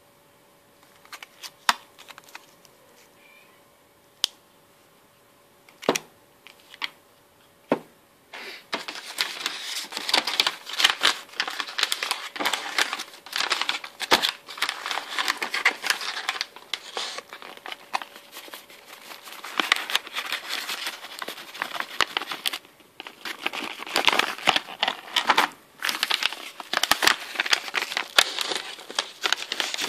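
Packaging being handled and crinkled: a few light taps and clicks at first, then from about eight seconds in, dense crinkling and crumpling that goes on with short pauses.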